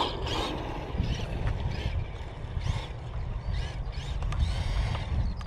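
Electric Tamiya TT-02 RC rally car driving a slalom, its motor giving short whines that rise and fall as it speeds up and slows between cones. A steady low rumble of wind on the microphone runs underneath.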